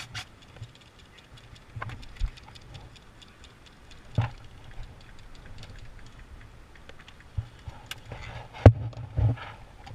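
Scattered sharp clicks and ticks with a few louder knocks, the loudest near the end. These are the sounds of an airsoft skirmish heard from inside a stripped car body, with no steady background sound.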